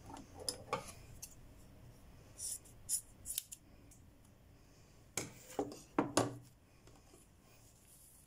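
Hair scissors snipping through wet hair in a series of short, sharp cuts, coming in small groups, to trim the ends even.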